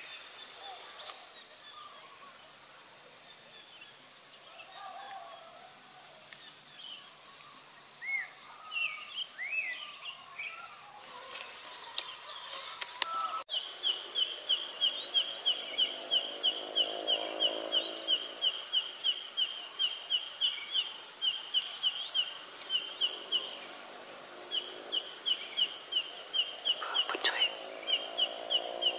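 Forest ambience: a steady high insect drone with scattered bird calls. After an abrupt cut about halfway through, a bird repeats a sharp chirp about three times a second over the drone, and a lower, drawn-out call sounds twice.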